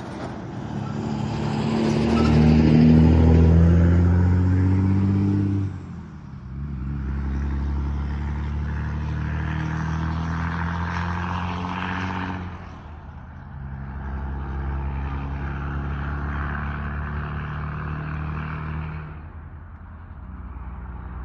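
Diesel locomotive engines of a light power move throttling up as it pulls off, the engine note rising in pitch and loudest for the first few seconds. It then drops back and runs steadily, easing off twice and pulling again, as the locomotives make a slow switching move to pick up cars.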